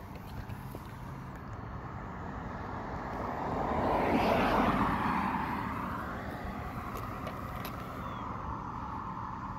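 A car driving past, its noise swelling to a peak about halfway through and then fading.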